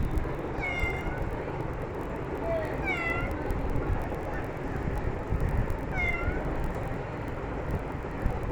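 Domestic cat meowing three times, about three seconds apart, each call sliding down in pitch, over a steady low rumble: a hungry cat asking for food.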